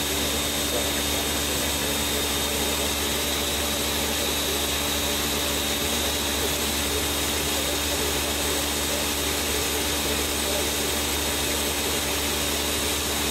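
Countertop blender motor running steadily, blending nut milk: an even whirr with a steady low hum and a thin high whine.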